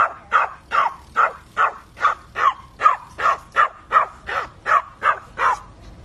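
Small dog barking in a steady run of short, high yips, about two and a half a second, stopping near the end: the one dog acting up while the others stay calm.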